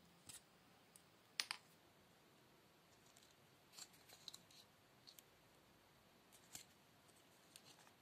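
Faint, scattered clicks and scrapes from hand-stitching a small leather loop with needle and thread, as the needle is pushed through the leather and the thread drawn tight. The loudest click comes about one and a half seconds in.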